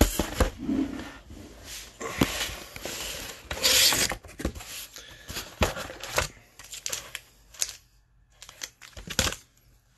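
Handling noise of trading cards in plastic holders being picked up and moved: a run of sharp clicks and rustles, with a louder scraping rustle about four seconds in.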